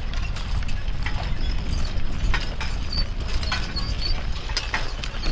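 Work horse or mule team moving, with irregular hoof and harness clinks and knocks over a steady low rumble.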